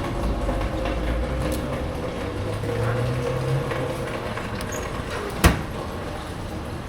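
A motor vehicle engine running steadily close by in street noise, with one sharp knock about five and a half seconds in.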